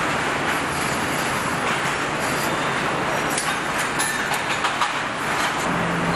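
Steady mechanical din of a car assembly line, with a few short sharp clicks about three to five seconds in.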